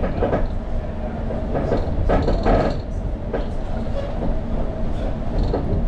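Cabin noise of a London Overground Class 710 electric train running along the line: a steady rumble with a few short louder clatters.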